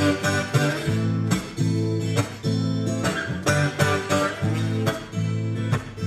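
Guitar strumming chords in a steady rhythm, with sharp accented strokes falling at an even beat.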